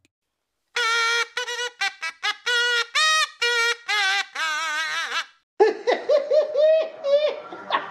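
A comedy meme sound effect: a short tune of about a dozen pitched notes, the later ones wavering, stopping about five seconds in. Then high-pitched laughter begins.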